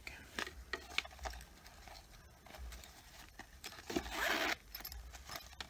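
Zipper on a leather-look toiletry bag being pulled open, with a denser zipping rasp about four seconds in, amid light handling rustles and clicks.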